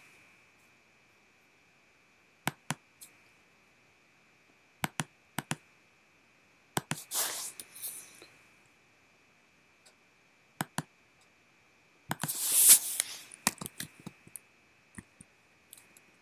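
Computer mouse and keyboard clicks: sharp single and paired clicks every few seconds, with a few key presses in the second half. Twice a short hissy rush sounds, and a faint steady high tone runs underneath.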